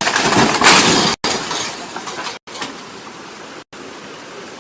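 A truck crashing down through a wooden structure: a loud crash of splintering timber and metal in the first second, which dies away into a steady rushing hiss. The sound drops out for an instant a few times.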